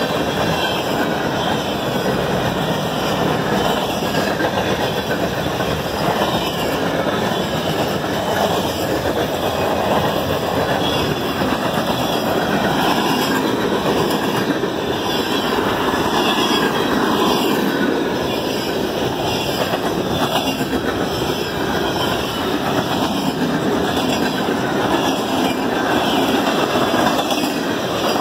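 Cars of a mixed freight train rolling past close by: a steady rumble and clatter of steel wheels on the rails.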